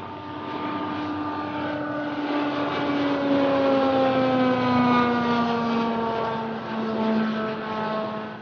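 Sikorsky X2 compound helicopter, with coaxial rotors and a pusher propeller, flying past low and fast: a loud drone made of several tones that slowly drop in pitch as it goes by, loudest about halfway through.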